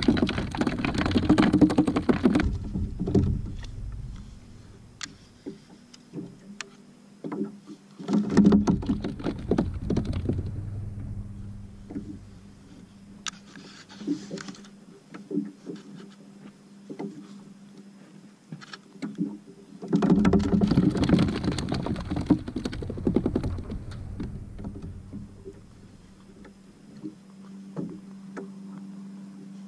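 Wind and water noise on a kayak at sea, coming in three rushing surges of two to three seconds each, with quieter stretches and faint scattered ticks between them.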